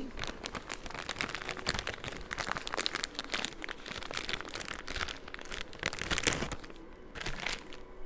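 Plastic packaging crinkling and rustling in an irregular run of small crackles as a piece of air-dry clay is taken out, thinning out near the end.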